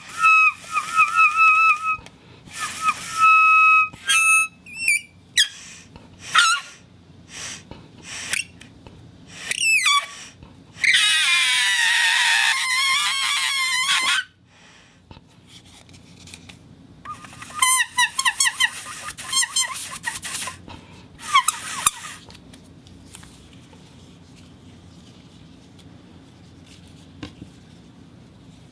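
Rubber whistle sounding in a series of short, high squeaky whistles. Some are held as steady tones, others waver or slide in pitch. A longer, harsher warbling squeal comes about eleven seconds in, and the whistling stops a little after twenty seconds in.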